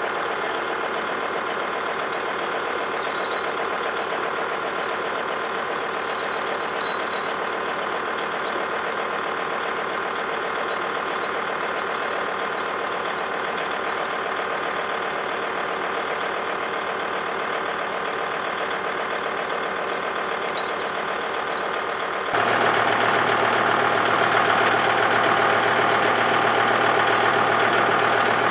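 Kubota engine idling steadily, suddenly getting louder about three-quarters of the way in and then holding that level.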